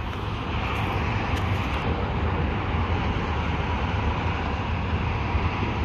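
Steady rumble of passing road traffic, with no crossing bells or horn.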